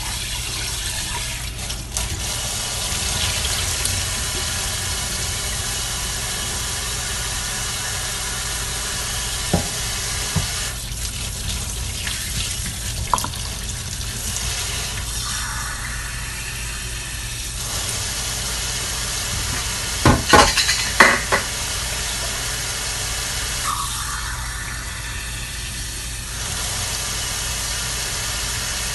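Kitchen tap water running steadily into a stainless steel sink and a metal bowl of rice, the sound of the stream changing as it lands on different surfaces. There are a few sharp knocks of the metal bowl, the loudest cluster about two-thirds of the way through.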